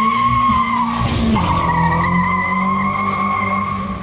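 A car doing a burnout: tyres squealing in a steady high tone while the engine is held at high revs. The squeal and engine note break off briefly about a second in, then pick up again slightly lower.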